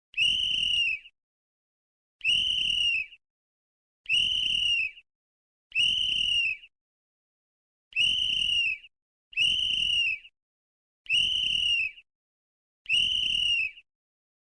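A sports whistle blown in eight separate blasts of about a second each, each a single steady shrill tone that drops slightly as it cuts off, with silent gaps of about a second between them.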